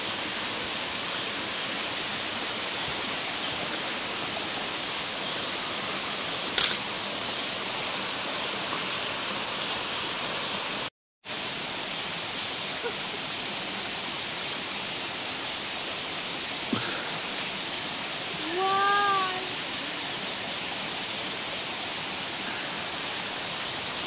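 Steady hiss of a shallow rocky stream running. It cuts out briefly near the middle, and a short voice-like sound comes a little past three-quarters of the way through.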